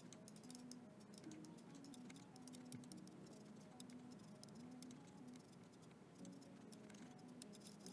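Near silence: faint background music, with a scatter of soft clicks from a computer mouse and keyboard.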